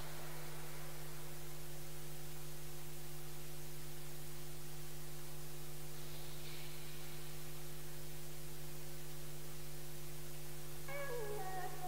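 Steady electrical mains hum with a faint hiss, an idle broadcast or arena sound line with no programme sound on it. Near the end a wavering pitched sound, the start of music with singing, comes in faintly.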